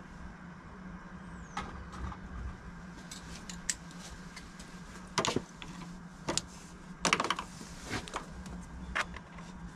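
Scattered small metallic clicks and clinks of hand tools being handled: a socket being swapped on a screwdriver-style driver and fitted to a bolt, coming thicker in the second half.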